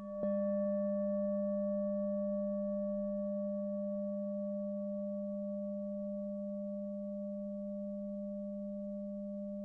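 Singing bowl struck about a quarter second in, then ringing on as a steady low hum with fainter higher overtones, slowly fading.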